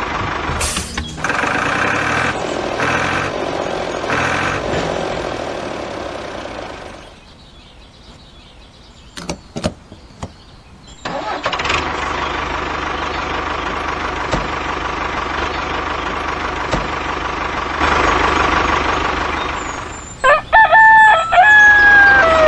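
Tractor engine running, dying away about seven seconds in, then starting again after a few sharp clicks and running steadily. Near the end a loud pitched wavering call breaks in over it.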